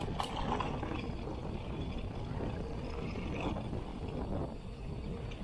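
Giant Trance X 29 mountain bike rolling fast down a packed-dirt trail: steady low rumble of tyres and wind on the microphone, with a couple of short rattles as the bike hits bumps.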